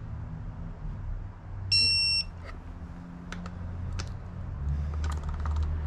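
Snap-on digital torque wrench giving one electronic beep about half a second long, signalling that the bolt has reached its 14 ft-lb target torque. A few light clicks follow.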